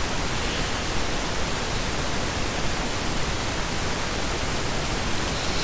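A steady, even hiss of recording background noise with nothing else over it.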